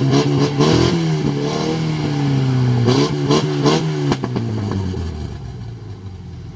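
Off-road 4x4 engine revving hard, its pitch climbing and falling several times, with sharp clattering bursts. About five seconds in it drops back toward idle.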